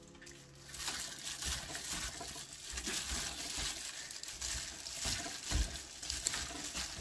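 A plastic-gloved hand squeezing and tossing siraegi (rehydrated radish greens) with a paste of gochujang, doenjang and minced garlic in a stainless steel bowl: irregular wet squelching and glove crinkling, starting about a second in.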